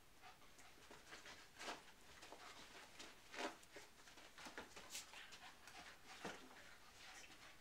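Two poodles play-wrestling on a bed: faint, scattered scuffles and short dog noises, the loudest about halfway through.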